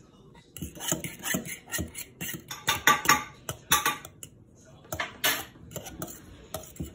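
A metal utensil stirring a milky mixture in a stainless steel mixing bowl, clinking and scraping against the bowl in quick, irregular strikes.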